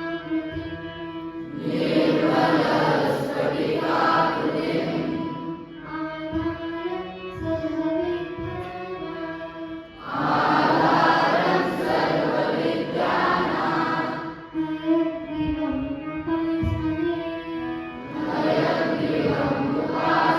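Music with a choir of voices singing, swelling louder in passages that come back every eight seconds or so.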